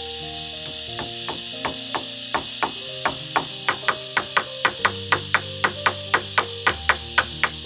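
Hammer driving nails through shade netting into a wooden roof frame: sharp blows, a few spaced out at first, then quickening to about three a second. Background music plays underneath.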